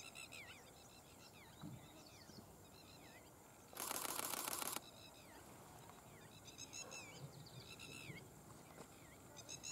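A camera shutter firing in a rapid burst for about a second, about four seconds in. Birds call faintly throughout with short, repeated downward-sweeping chirps.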